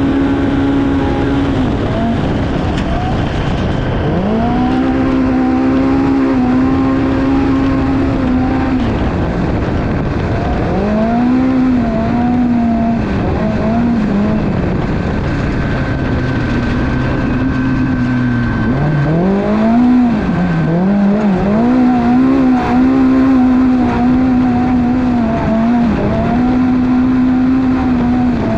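Polaris Pro R UTV's engine racing flat out, heard from on board: it holds a mostly steady pitch, dips briefly several times and quickly climbs back, over constant wind and off-road noise.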